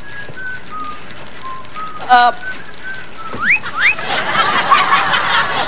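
A person whistling a slow tune, broken about two seconds in by a short loud sound. Two quick rising whistles follow, then from about four seconds in a studio audience laughs and chatters.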